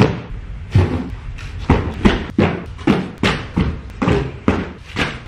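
Cardboard boxes being set down and stacked on the floor: a quick run of thumps and knocks, about two or three a second.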